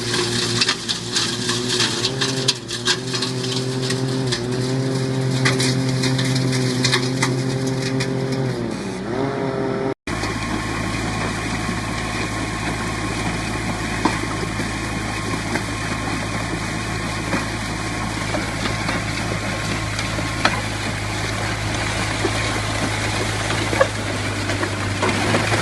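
Engine of a small construction machine running steadily; its pitch drops about nine seconds in. After an abrupt cut about ten seconds in, a steady engine drone with a low hum.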